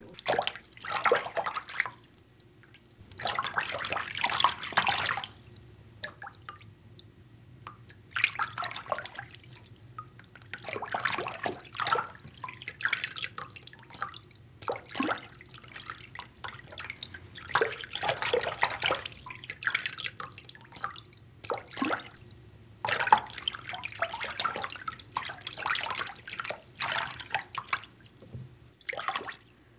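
Water in a bathtub being moved about in irregular splashing sloshes of a second or two, with quieter gaps and drips between them.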